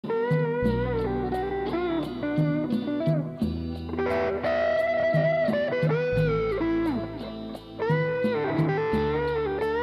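Live electric guitar playing a lead line with bent notes over a sustained bass line and a steady ticking beat. The music starts abruptly at the very beginning.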